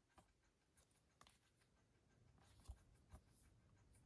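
Near silence with two faint, short knocks about half a second apart, a little under three seconds in: a plastic Blu-ray case being handled.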